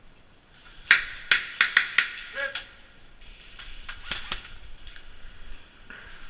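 Airsoft guns firing in a skirmish: a quick run of sharp cracks about a second in, then another tight cluster of cracks around four seconds in.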